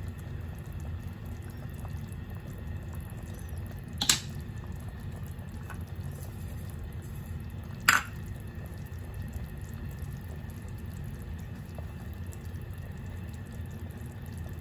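Pot of sinigang broth simmering on the stove, a steady low rumble, broken by two sharp knocks, one about four seconds in and one about eight seconds in.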